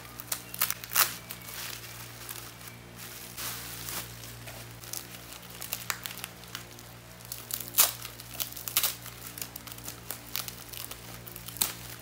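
Plastic bubble wrap crinkling and crackling irregularly as hands handle it and peel it off a small boxed item, with the loudest crackle about two-thirds of the way through.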